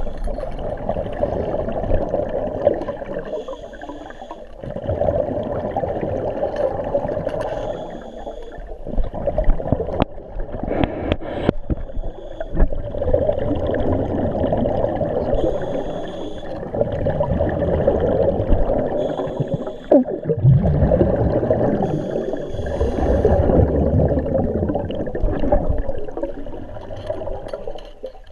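Scuba regulator bubbles heard underwater, a gurgling rush that comes in surges of a few seconds with short dips between them. A few sharp clicks sound about ten seconds in.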